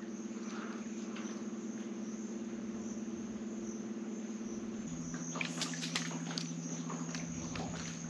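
Electric trolling motor humming steadily as the boat holds against the current; its hum drops in pitch about five seconds in as the motor speed changes. A scatter of light clicks and ticks joins it for a couple of seconds after that.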